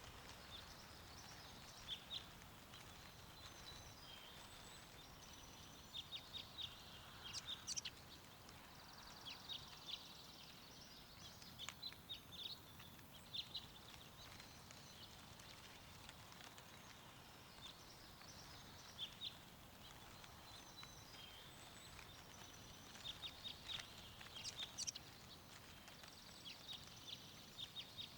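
Small songbirds chirping in quick clusters of short, high notes over a faint steady wind hiss.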